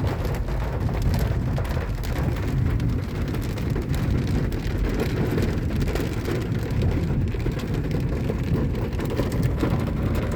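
Hail pattering steadily on a vehicle, heard from inside the cab as many fine ticks, over the low rumble of the vehicle creeping along a hail-covered road.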